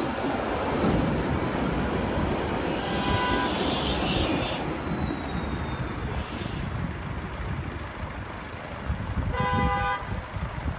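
Tram passing close by with a steady rumble, with a brief higher pitched tone and hiss about three seconds in. Near the end a single short horn toot, about half a second long, over traffic noise.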